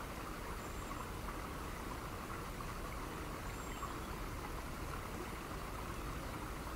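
Steady hissing noise with a low rumble underneath, unchanging throughout; no music or speech.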